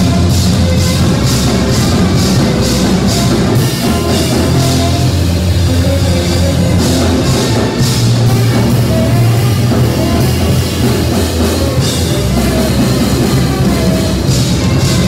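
Live band music: an electric bass guitar and a drum kit playing a loud, driving groove, with cymbals struck in a steady rhythm over a heavy bass line.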